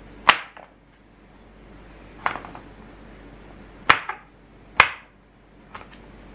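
Plastic bench scraper chopping roasted sweet chestnuts on a wooden board: sharp knocks each time the edge cuts through and strikes the wood, about five chops at uneven intervals, one of them doubled.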